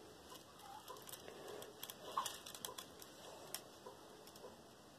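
Small acrylic beads clicking lightly against each other as the beaded doily is handled and turned over, with a cluster of quick clicks about two seconds in.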